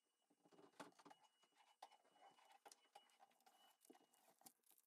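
Faint, irregular scratching and tapping of a pen on watercolour paper as the painting is signed, with a thin steady high tone coming and going in the background.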